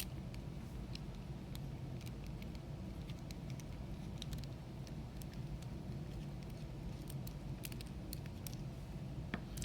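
Faint, scattered small metallic clicks and taps of a Mako 425 padlock and a screwdriver being handled as the lock is taken apart, over a low steady background hum.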